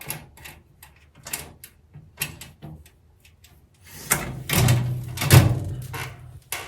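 Sheet-metal parts of a welding cart being handled: scattered light clicks and knocks, then a louder rattling scrape of metal for about two seconds, four seconds in, and one more knock near the end.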